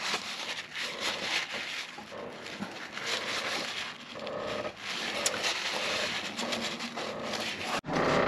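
Paper towel rustling and rubbing as it wipes the oil filter seat on a marine diesel engine, a run of small irregular scrubbing strokes.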